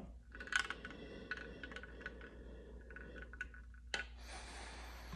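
A slow, steady inhalation through the mouthpiece and corrugated tubing of a Voldyne incentive spirometer: a faint airy draw with light clicks from the device. This is the slow inspiratory pull meant to hold the flow cup in the best range while the piston rises. A click about four seconds in is followed by a brighter hiss of air.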